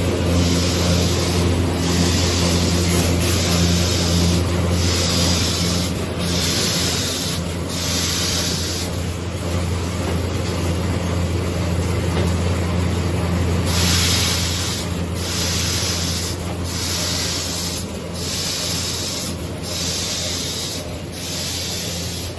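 High-speed automatic facial tissue packing machinery running. A steady low motor hum carries short hisses about once a second; the hisses stop for a few seconds in the middle and then resume.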